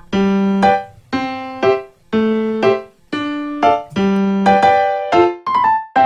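Background music: a slow piano melody, single notes or chords struck about once a second, each ringing and fading before the next.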